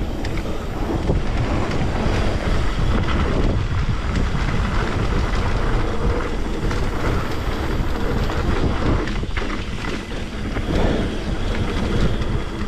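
Wind rushing over a chest-mounted GoPro's microphone on a fast mountain-bike descent, with a steady roar of tyres on trail and scattered rattles and knocks from the bike over rough ground.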